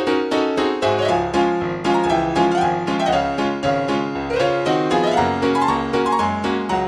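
Solo piano music: a brisk accompaniment of quickly struck notes, several a second, over a steady bass line.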